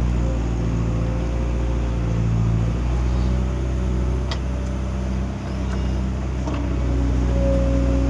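Excavator's diesel engine running steadily under load, with a steady whine over the engine note, and a few sharp knocks about four, five and a half and six and a half seconds in.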